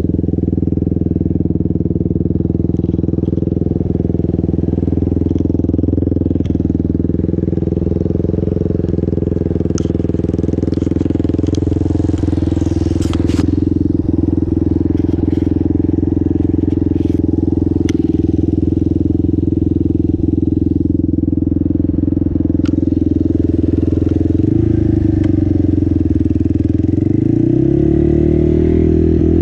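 Yamaha Warrior 350 ATV's single-cylinder four-stroke engine running steadily, then revving up and down near the end. A few light clicks are heard over it.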